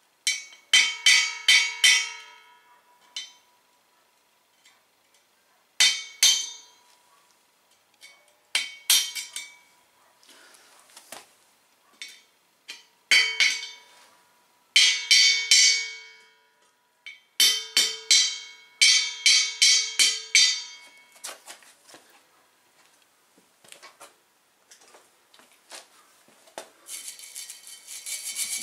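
Hammer tapping a punch against the steel shell of an empty propane bottle in groups of several quick strikes, the bottle ringing after each. A file starts rasping on the metal near the end.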